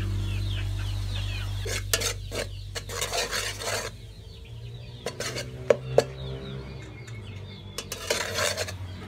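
A metal ladle clinking and scraping against the sides of a steel cooking pot as it stirs, with two sharp clinks about six seconds in.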